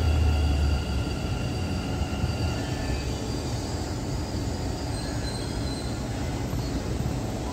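Running noise heard from inside a Namma Metro train car: a steady rumble of the moving train, with a strong low hum in the first second and a set of high whining tones that fade out about three seconds in.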